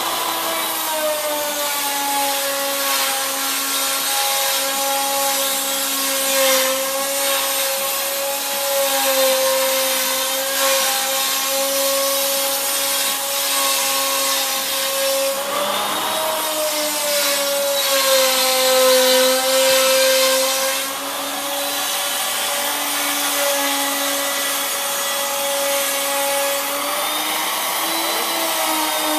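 Electric motor of a woodworking power tool running continuously with a steady whine, its pitch sagging briefly around the middle and again a few seconds later as if under load.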